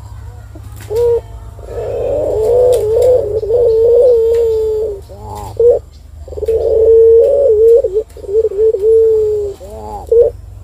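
Caged ringneck (Barbary) dove cooing: a short call about a second in, then two long, drawn-out coos with a wavering pitch, separated by a brief pause just after the middle.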